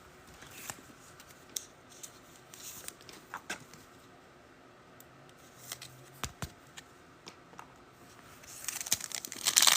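Trading cards being handled, with scattered light clicks and taps, then near the end a pack wrapper crinkling as it is torn open.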